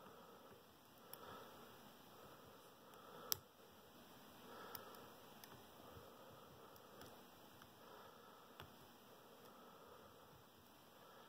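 Near silence with faint clicks of picking tools working inside a Schlage Primus lock cylinder, one sharper click about three seconds in.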